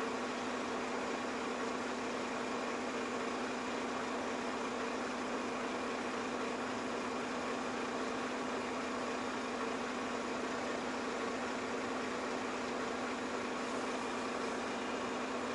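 An engine idling steadily: an even hum with one constant tone and no change in speed.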